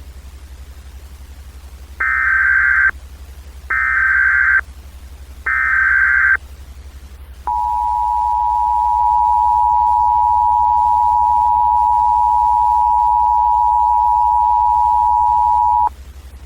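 Emergency Alert System SAME header: three short bursts of digital data tones with short gaps between them, then the two-tone EAS attention signal held for about eight seconds and cut off abruptly, over a low steady hum.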